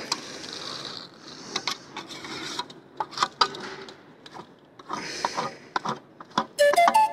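Scraping of a small hand tool on stone and mortar, in two bursts about five seconds apart, with scattered clicks and taps in between. Whistle-like music starts near the end.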